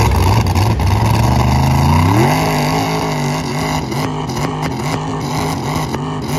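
Lifted trucks' engines running hard under load in a tug-of-war pull. About two seconds in, the engine note climbs, then holds high and wavers up and down as the trucks strain against each other.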